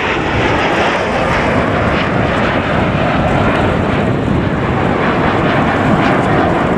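A formation of Aermacchi MB-339 jet trainers flying overhead, their Rolls-Royce Viper turbojets giving a loud, steady jet noise.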